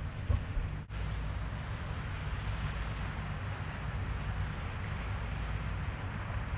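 Steady outdoor rumble and hiss by open water, a low drone with a wind-like rush over it. The sound drops out for an instant about a second in, where the recording is cut.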